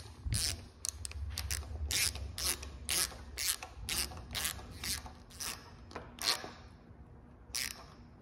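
Ratcheting screwdriver clicking in short bursts, about two a second, as a screw is driven through a bronze gooseneck fitting into a wooden mast. The clicking stops about six and a half seconds in, with one last burst near the end.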